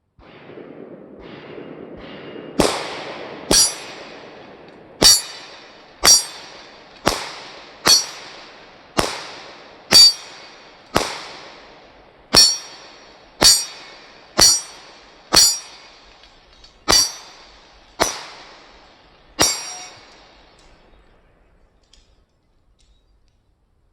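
Smith & Wesson SD9VE 9mm pistol firing handloaded rounds: about sixteen shots in steady succession, roughly one a second with a short pause or two, each followed by a trailing echo.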